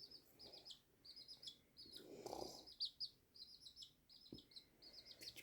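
Chicken chicks dozing off, giving faint, rapid high peeps in short trilling runs: the soft sleepy sounds that chick keepers call snoring.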